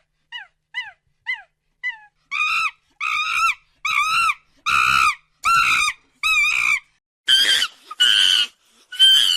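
A primate calling: a few short, falling chirps, then a run of louder calls coming about once every 0.8 seconds, the last few harsher.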